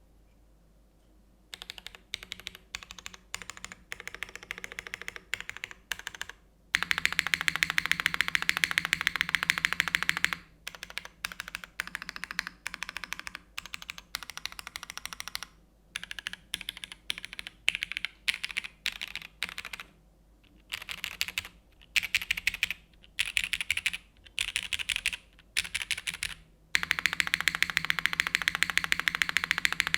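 Typing on a plateless Geonworks F2-84 mechanical keyboard with lubed Cherry MX2A Black linear switches and GMK keycaps. Keystrokes clack in uneven spurts starting about a second and a half in, with two long stretches of very fast, dense typing, one about seven seconds in and one near the end.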